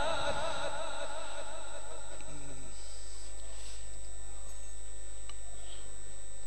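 The end of a melodic Quran recitation phrase dying away with echo from the amplified voice, then a pause filled by a steady low electrical hum from the microphone and sound system, with faint brief sounds such as a short low voice about two and a half seconds in.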